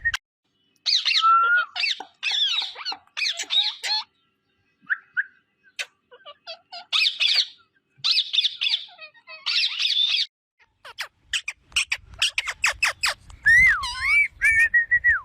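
Indian ringneck parakeet squawking and chattering in harsh bursts, then a quick run of clicks and whistled notes near the end.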